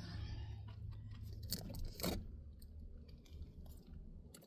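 Tape being pulled loose from a car door window glass, a soft rustle in the first second, followed by a few light clicks and knocks of hands handling the glass and regulator parts inside the door, over a steady low hum.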